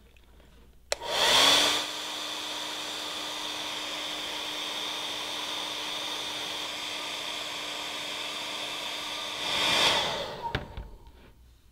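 Handheld hair dryer switched on with a click about a second in, its motor whine rising as it spins up, then running steadily with a rushing air noise for about eight seconds. It is switched off near the end, and the whine falls as the motor winds down.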